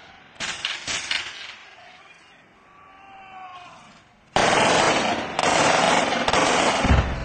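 Gunfire: a quick string of sharp shots in the first second, then after a lull a loud, dense stretch of rapid fire lasting a few seconds, ending with a heavy low thump.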